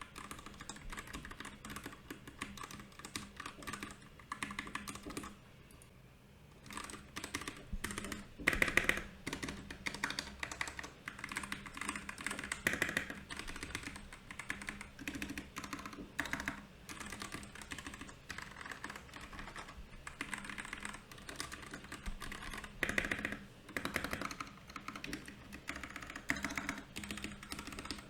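Continuous typing on a Royal Kludge RK68 mechanical keyboard, a fast, irregular stream of key clacks with a brief lull about six seconds in and a few louder strokes later on.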